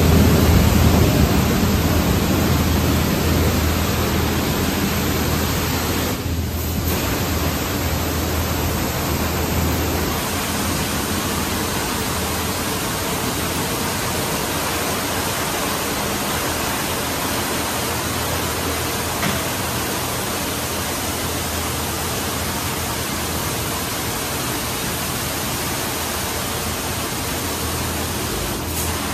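D&S 5000 touchless car wash gantry spraying high-pressure water over a pickup truck: a steady hiss. A low hum under it stops about ten seconds in.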